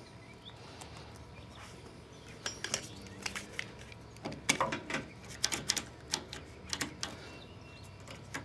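Metal tools and parts being handled on a steel loader bucket: an irregular series of sharp clicks and clinks that begins about two and a half seconds in and fades out near the end.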